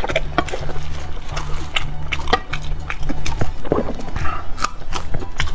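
Close-miked chewing of soft blood sausage: many short wet mouth clicks and smacks, over background music with a steady low bass line.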